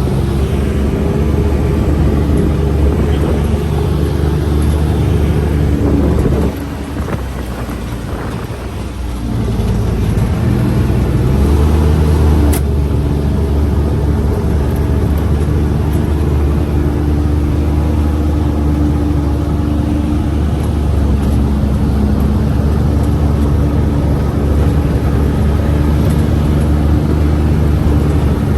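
Four-seat UTV's engine running steadily under way, a continuous drone with road and rattle noise. About six seconds in it eases off and quietens for a few seconds, then picks back up to a steady run.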